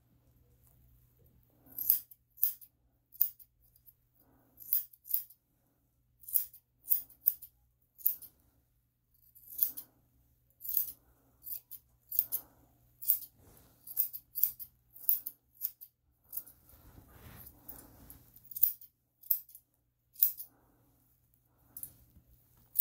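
Grooming shears snipping the long fur on a Shih Tzu's paw: a run of short, crisp snips, irregularly spaced, about one or two a second.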